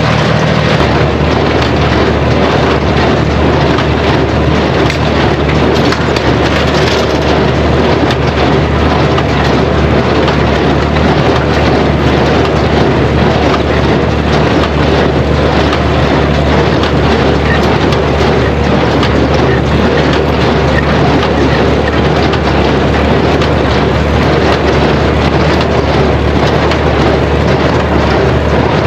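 Farmall 460 tractor running steadily under load while pulling a New Holland 268 small square baler that is working, a loud, unbroken mechanical noise.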